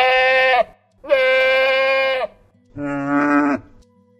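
Goat bleating three times: one bleat ending just after the start, a long bleat, then a shorter, lower bleat near the end.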